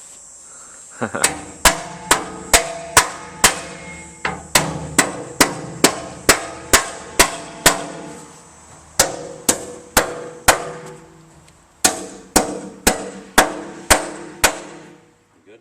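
Hammer blows driving anchors into holes drilled in concrete, a steady run of sharp strikes about two a second with a brief ring after each, pausing twice before stopping near the end.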